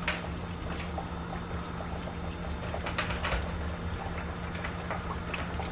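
Flour-coated butterflied chicken deep-frying in hot oil: a steady sizzle with scattered crackles and pops.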